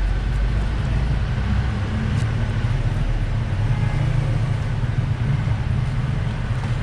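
Steady low rumble of street traffic, with a motor vehicle engine running close by.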